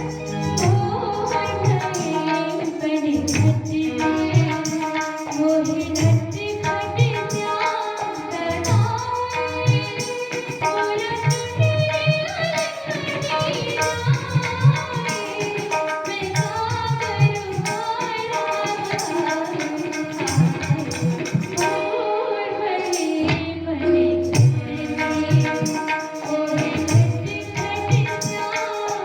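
A woman singing a Hindi song with tabla accompaniment, the low drum strokes keeping a steady beat under the melody.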